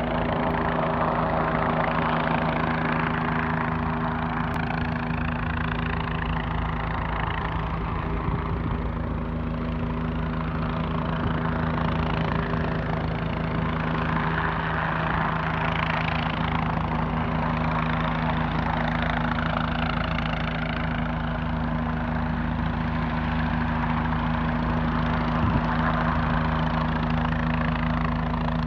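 Small light helicopter hovering, its engine and rotor running steadily with a low hum, the rotor noise swelling and fading slowly every few seconds.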